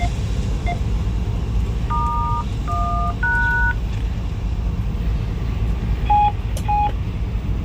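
Three two-tone keypad (DTMF) tones, each about half a second, from the train's radio about two seconds in, with short single beeps near the start and two near the end. Under them runs a steady low rumble of the locomotive cab.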